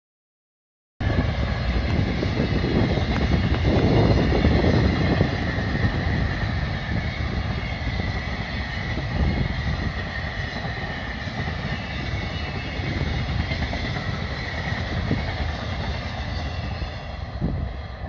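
Container freight train rolling past, its wagons rumbling steadily along the rails. The sound starts abruptly about a second in, is loudest a few seconds later, and eases off slightly as the train draws away.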